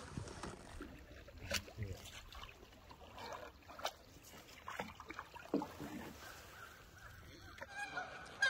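Canoe paddling: the paddle dipping and pulling through the water with dripping and light splashes, and a few sharp knocks of the paddle against the canoe's hull. A brief pitched sound near the end.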